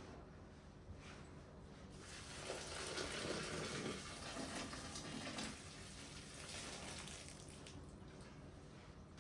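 Water running from a kitchen tap into a sink. The flow is heavier for a few seconds in the middle, then lighter.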